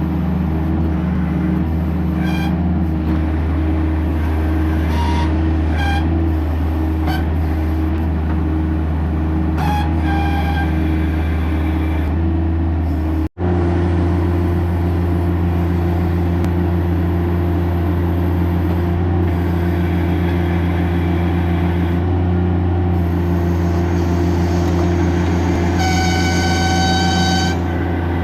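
Bobcat MT100 mini track loader's engine running steadily at working speed while it operates the M06 backhoe attachment. Short high tones come and go, and a longer high whine lasts about a second and a half near the end. The sound drops out for an instant about halfway through.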